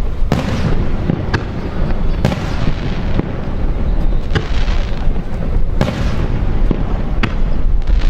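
Aerial firework shells bursting in a display: sharp bangs about once a second, some echoing briefly, over a continuous low rumble.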